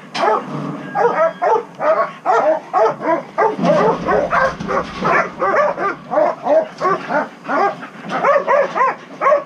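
Dogs barking in a rapid, unbroken string, about three or four short barks a second.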